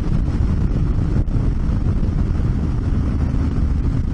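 Honda Africa Twin CRF1000L's parallel-twin engine running at a steady cruising speed, mixed with tyre rumble on a gravel road and wind buffeting the helmet-mounted microphone. One short sharp click sounds about a second in.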